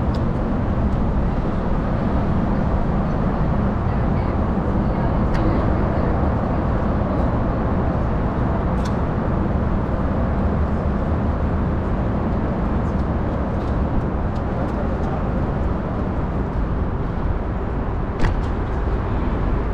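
Wind buffeting the microphone of a GoPro on a moving bicycle: a steady low rumble, with a few sharp clicks, the loudest near the end.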